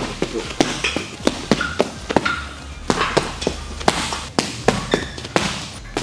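Boxing gloves landing punches in quick combinations, a run of sharp smacks often coming in pairs, with music playing faintly behind.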